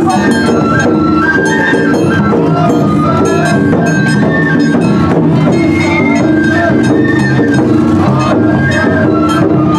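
Japanese festival float music (hayashi): a high flute melody moving in held steps over steady drumming and rapid metallic clinks.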